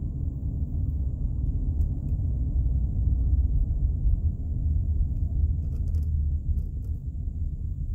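Steady low rumble of a car driving slowly on a paved street, heard from inside the cabin: road and engine noise, with a few faint ticks near the end.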